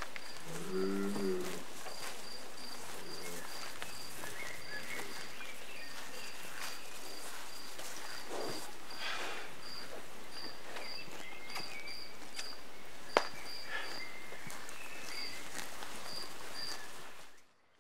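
Crickets chirping steadily outdoors, a regular pulse of short high chirps about three a second over a soft rural background, with scattered footstep-like clicks. A brief low sound comes about a second in and one sharp click past the middle, and the sound fades out just before the end.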